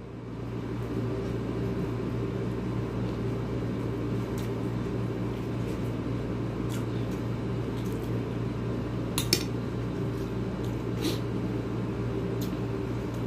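A man eating rice and fried tilapia with his hands: a few soft clicks and smacks of chewing and handling the plate, the loudest a double click about nine seconds in, over a steady low mechanical hum.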